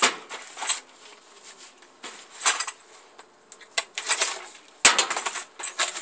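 Cardboard packaging being opened and handled, with scattered clicks, rustles and light metallic clinks of loose parts; the busiest, loudest stretch comes near the end.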